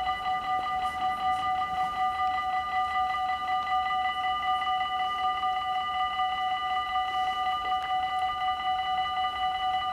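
Level-crossing warning bell of a Dutch automatic half-barrier (AHOB) crossing, ringing steadily with rapid, evenly repeated strokes while the barriers are down, the warning that a train is approaching.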